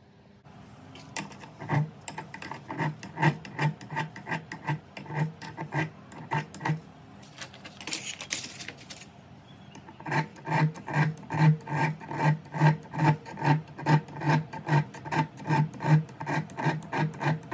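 Hand file scraping a forged steel knife blank held in a vise, in regular back-and-forth strokes: about two a second at first, a lull near the middle, then faster and steadier strokes.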